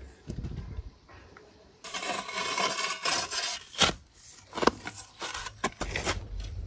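Steel shovel blades digging into hard, packed earth: rough scraping and chopping into the soil, with several sharp strikes.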